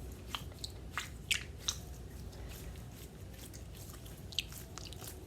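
Glitter dumpling squishy toy squeezed in the hands, giving a few soft, sticky clicks and squelches, most of them in the first two seconds and one more near the end.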